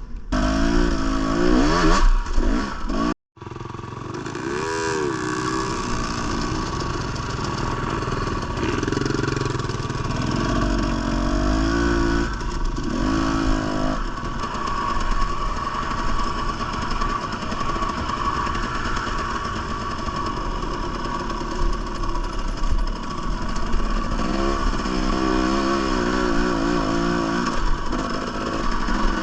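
Two-stroke Husqvarna TE300 dirt bike engine running and revving up and down in repeated bursts as it is ridden. There is a brief dropout in the sound about three seconds in.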